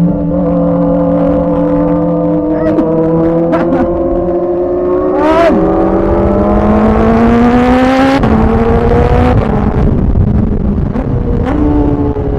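Kawasaki ZX-4RR's inline-four engine under way, holding a steady pitch, then pulling with a slowly rising pitch before dropping suddenly at an upshift about eight seconds in, with further shifts after. Wind and tyre hiss run under it.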